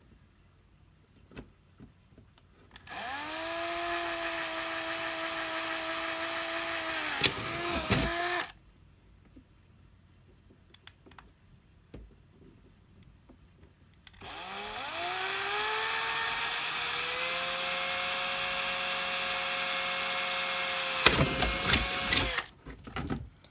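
Small electric drill drilling holes in a plastic RC body shell, run twice: each run spins up with a rising whine, holds a steady pitch for several seconds, then winds down.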